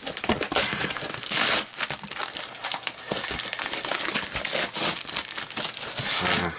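Parcel tape and a strip of cardboard being peeled and ripped off the top of a cardboard box: continuous crinkling and tearing, loudest about a second and a half in.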